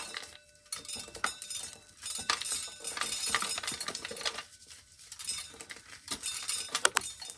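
Dried corn being shelled by hand: a dry crackle of kernels being rubbed off the cob, with clusters of small clicks and patter as the kernels fall.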